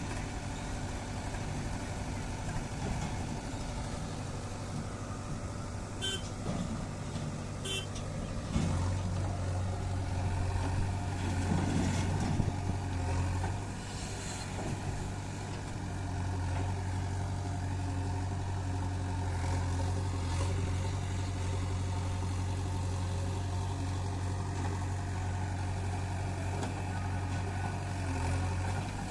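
Heavy diesel machinery engine running with a steady deep hum. It revs up and grows louder about a third of the way in, dips briefly, then stays louder for most of the rest. Two short sharp knocks come early on.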